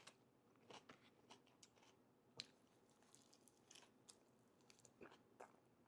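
Faint close-up chewing of loaded fries with spicy pork: scattered soft mouth clicks and crunches, one sharper click about two and a half seconds in.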